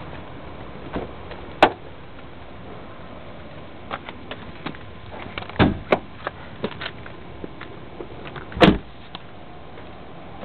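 Dodge Stratus car door being worked by hand: a sharp latch click as it opens, scattered knocks and clicks while the door sill trim is handled, and a heavy thud near the end as the door shuts.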